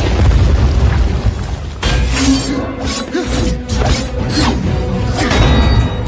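Action-film soundtrack: music over deep explosion booms and rumble. From about two seconds in comes a string of sharp hits and whooshes.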